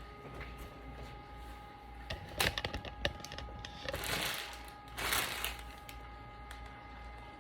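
Glowforge Plus laser cutter starting up after being switched on: a run of sharp clicks about two seconds in, then two short whooshing bursts about a second apart, over a faint steady hum.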